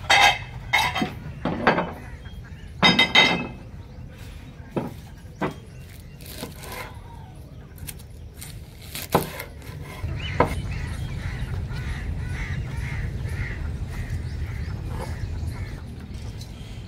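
A metal tray and dishes clinking and clattering against each other, then a few single taps of a cleaver cutting an onion on a wooden chopping board. About ten seconds in, a steady outdoor background takes over, with faint repeated chirping.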